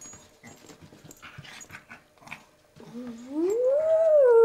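A small dog scuffling with a toy on carpet, with light clicks and rustles, then about three seconds in a long howl that rises in pitch and falls away again.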